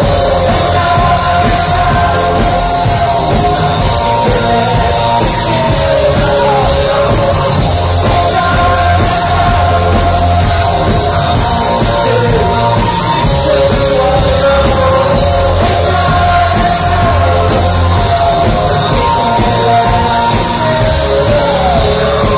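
Live rock band playing loudly with a singer, recorded from within the audience: a steady heavy beat under a sung melody.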